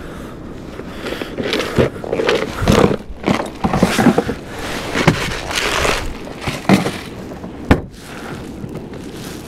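Irregular knocks, scrapes and rattles of fishing gear being handled aboard a kayak, ending in one sharp knock near the end.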